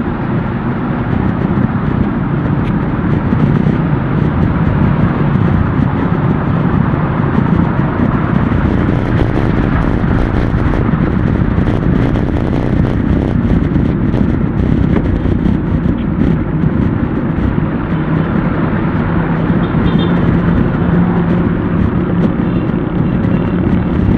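Steady wind and road noise on an action camera's microphone while cycling in city traffic, with motor vehicle engines running close by; a low engine hum gets stronger in the second half.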